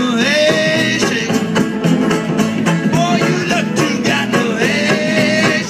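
Live band music with upright bass and electric guitar over a steady beat.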